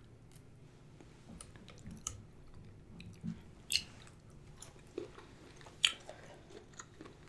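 A person eating, chewing quietly with scattered sharp wet mouth clicks and smacks.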